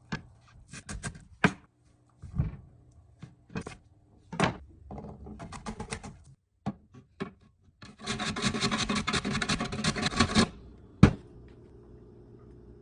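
Cooking utensils knocking and scraping, a string of separate clicks and taps followed by a few seconds of steady scraping about eight seconds in, then one sharp knock and a faint steady hum.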